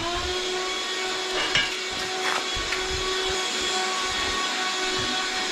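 Black & Decker Dustbuster handheld vacuum running steadily, its motor whine held at an even pitch over a rush of air, with a few brief clicks.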